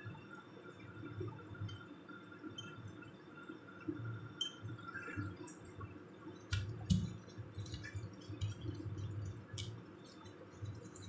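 Wooden pestle grinding chili paste in a wooden mortar (ulekan and cobek): irregular low knocks and scraping that start about two-thirds of the way in, after a stretch of faint handling clicks.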